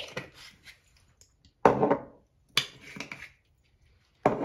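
Kitchen utensils and spice jars knocking and clattering on a wooden cutting board as spices are spooned into a bowl of minced meat: about four short knocks, the loudest a little before halfway.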